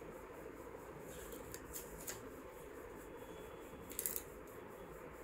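Quiet room tone with a steady faint hum, a few faint light clicks about one to two seconds in, and a short, slightly louder cluster of clicks about four seconds in.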